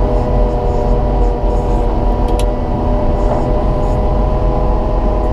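Cat 926M wheel loader's diesel engine and drive running steadily under load while it pushes snow, a constant multi-tone hum.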